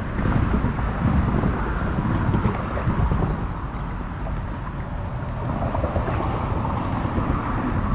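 Wind buffeting an action camera's microphone as a low, uneven rumble, over a hiss of water moving around a kayak.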